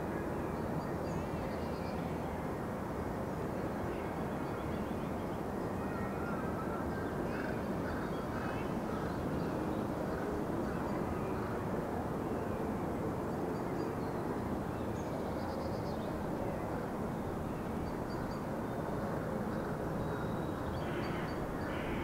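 Lakeside outdoor ambience: a steady low rumble with scattered faint small-bird chirps and a few waterfowl calls, one louder call coming near the end.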